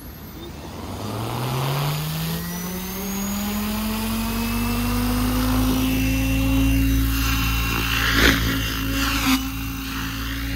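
Goosky RS7 700-size electric RC helicopter spooling up: its rotor hum rises steadily in pitch and loudness for several seconds, then holds level as the helicopter lifts off and climbs, with two short louder surges near the end.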